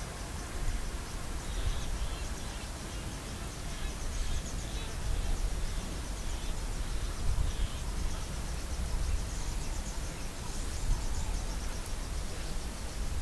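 Bush ambience: a steady low rumble with insects trilling faintly and a few bird chirps.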